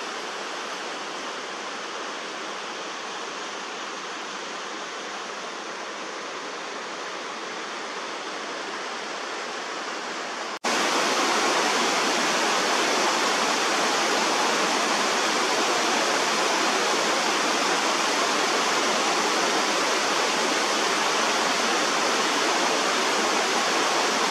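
Steady rushing of a mountain creek's waterfall. About ten seconds in, it cuts abruptly to a louder, brighter rush of water.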